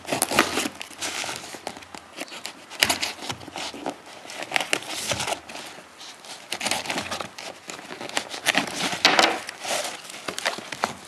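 A blade scraping and slicing through packing tape on a cardboard shipping box, with crinkling and crackling of tape and cardboard; near the end the box flaps are pulled open with a louder rustle.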